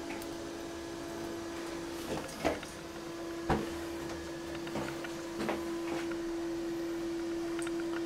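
Balterley toilet cistern refilling after a flush: the fill valve gives a steady hum over a faint hiss of water, with a few light knocks.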